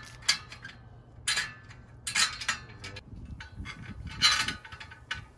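Steel welding-table frame parts and bolt hardware clinking and rattling as a larger bolt and nut are fitted to the crossbar: a handful of sharp metallic clinks with light clicking between them, the loudest about four seconds in.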